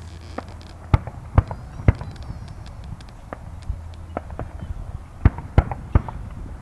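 Fireworks display: aerial shells bursting in a scatter of sharp bangs, three loud ones about half a second apart about a second in and three more about five seconds in, with fainter pops between.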